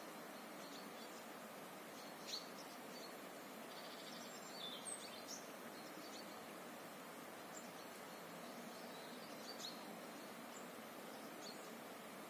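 Scattered short bird chirps over a steady background hiss. The clearest chirp comes about two seconds in, and a small cluster follows around the middle.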